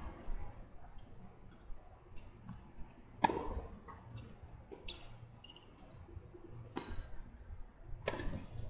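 Tennis ball being struck by rackets and bouncing on a hard court during a rally: a string of sharp pops, the loudest about three seconds in and again near the end, with fainter distant hits between.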